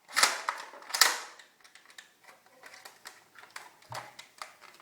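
Plastic toy blaster parts and packaging being handled: two sharp plastic clacks in the first second, then faint scattered clicks.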